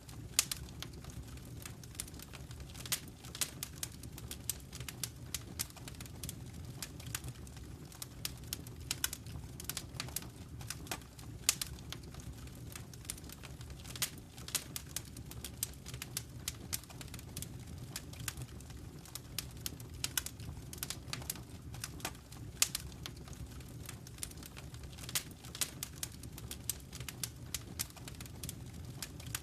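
Wood fire crackling in a fireplace: frequent irregular snaps and pops, a few of them louder, over a steady low rumble.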